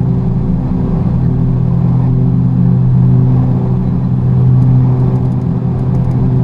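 Beechcraft King Air F90's twin Pratt & Whitney PT6A turboprops and propellers at takeoff power during the takeoff roll, heard inside the cockpit: a loud, steady propeller drone with several held low tones.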